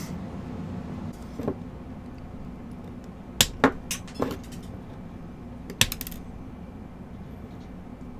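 Sharp little metallic clicks and clinks of a sterling silver ring and steel pliers being handled while the stone is fitted: four in quick succession about three and a half seconds in, two more near six seconds. A steady low hum runs underneath.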